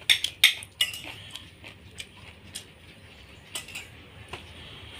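Spoon and ceramic plates clinking during a meal: a few sharp clinks in the first second, then lighter scattered clinks.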